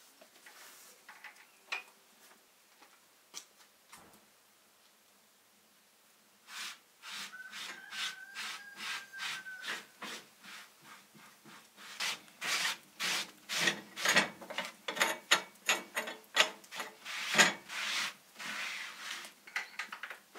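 A cloth being rubbed over a hard surface in short back-and-forth wiping strokes, starting about six seconds in, slow at first and then quicker, about three to four strokes a second.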